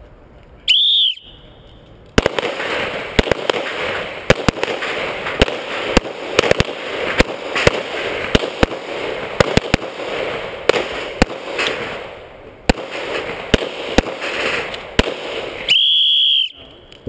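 A shot timer's electronic start beep, then, a second later, a rapid, overlapping volley of handgun shots from several shooters firing at bowling pins together, echoing, for about thirteen seconds. Another identical beep sounds near the end.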